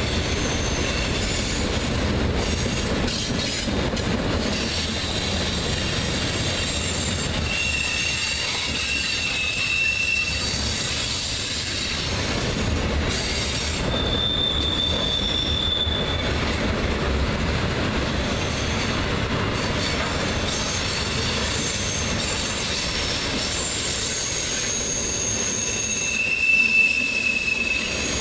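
Freight train cars (tank cars and autoracks) rolling past with a steady rumble of steel wheels on rail. Brief high-pitched wheel squeals sound several times, each lasting one to two seconds.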